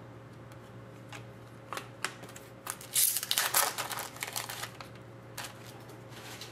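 Trading cards and their packaging being handled: scattered light clicks and rustles, with a louder stretch of crinkling about three seconds in.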